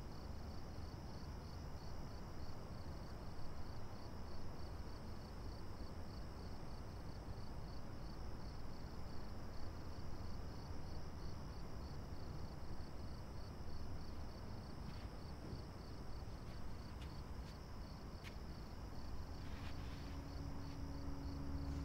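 A cricket chirping in an even, fast rhythm, about three chirps a second, over a low steady rumble of night ambience. A low held tone comes in near the end.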